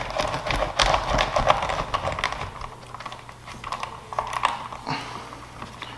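Quick light clicks and taps of a small bolt and hard plastic parts being handled as the bolt is threaded in by hand on a dirt bike's front end. The clicks come thick in the first couple of seconds, then thin out to scattered ticks.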